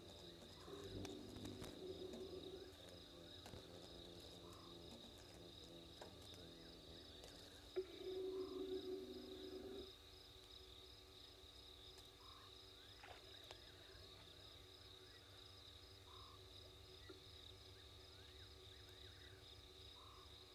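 Faint night chorus of crickets trilling steadily, with frogs croaking in two louder stretches about a second in and again around eight seconds in, and short soft chirps repeating every two seconds or so.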